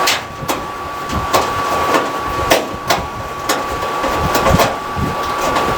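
Irregular sharp metallic clicks and taps as a screwdriver backs Phillips screws out of a clothes dryer's sheet-metal panel, about eight in all, over a thin steady high hum.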